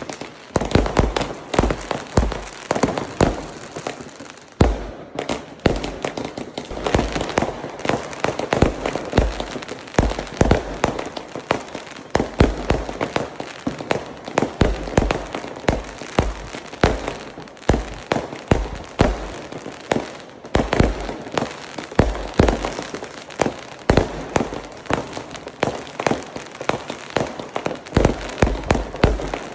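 Fireworks display: a dense, unbroken run of booming bursts and crackling, many bangs a second.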